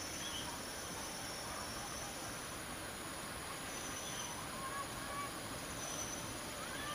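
Insects trilling: a steady high-pitched tone with a second one that starts and stops every second or two, over an outdoor hiss. From about four seconds in there are faint bird chirps, with short rising calls near the end.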